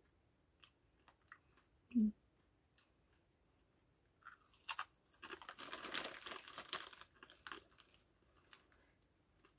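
Hand-cooked crisps being crunched and the crisp packet crinkling, a dense spell of crackling from about four to seven and a half seconds in, with scattered small clicks before it. A brief hum-like vocal sound about two seconds in.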